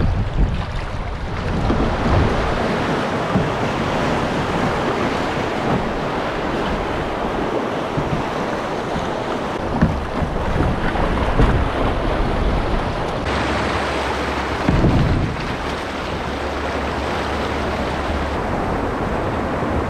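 River rapids rushing and splashing around an open canoe, with wind buffeting the microphone in low thumps. The sound of the water changes about two-thirds of the way through.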